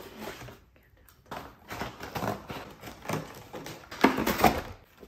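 Cardboard packaging from an iMac box being lifted out and handled: irregular rustling and scraping, loudest about four seconds in.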